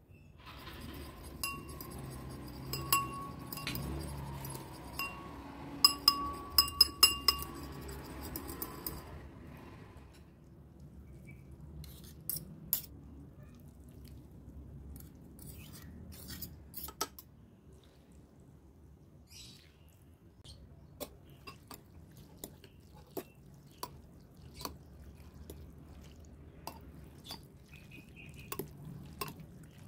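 A spoon stirring seasoning in a ceramic bowl, clinking against the sides with a ringing tone, with a quick run of loud clinks about six to seven seconds in. From about ten seconds on, quieter scattered taps and clicks of utensils against the bowls as noodles and broth are served.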